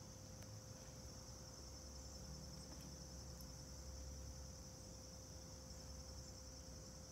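Faint, steady high-pitched chirring of insects, with a thin steady hum and a low rumble beneath.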